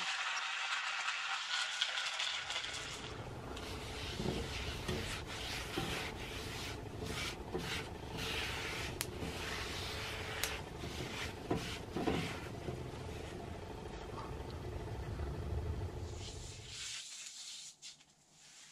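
A folded paper towel wiping and rubbing over a cast iron skillet, with repeated scraping strokes. It starts about two seconds in and stops shortly before the end.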